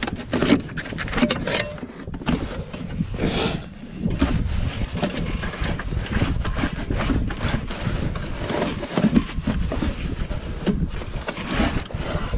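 Wind rumbling on the microphone, with rustling and scraping as gloved hands work at a snowmobile's drive clutch and belt. The engine is not running.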